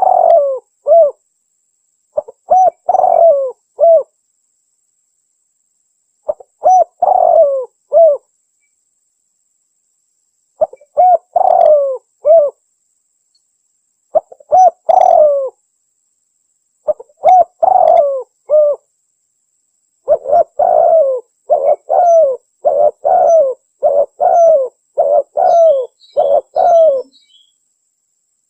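Spotted dove (tekukur) cooing in the Javanese 'anggunan' style. Short phrases of a few coos repeat every three to four seconds with silent gaps between them. From about twenty seconds in, a faster, unbroken run of coos lasts until near the end.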